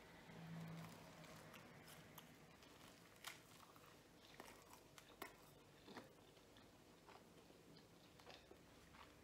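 Faint chewing of a bite of pizza crust close to the microphone, with scattered soft crunchy clicks from the mouth.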